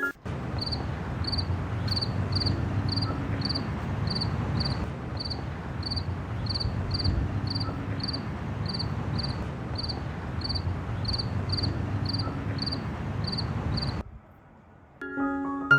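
A cricket chirping steadily, about two high chirps a second, over a steady low rushing background. Both stop suddenly near the end.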